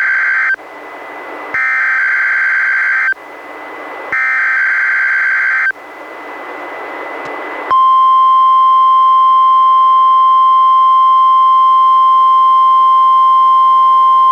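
NOAA Weather Radio SAME alert header: the tail of one burst of screeching two-tone data, then two more bursts of about a second and a half each, with radio static between them. About eight seconds in, the steady 1050 Hz weather radio warning alarm tone starts.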